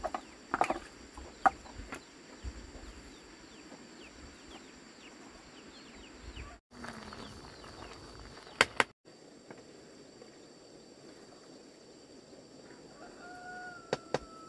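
Chickens clucking and chicks peeping, with a few sharp knocks near the start and about two-thirds of the way in, over a steady high-pitched hum.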